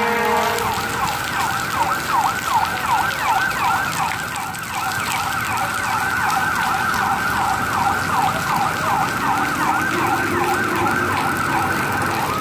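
Emergency vehicle siren in fast yelp mode, its pitch sweeping rapidly up and down about three times a second without a break.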